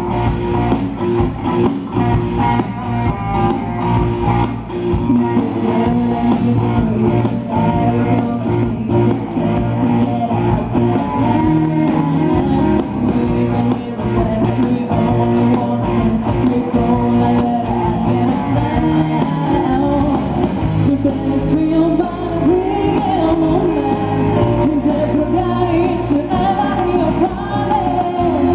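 Pop-rock music with a singer and a steady drum beat.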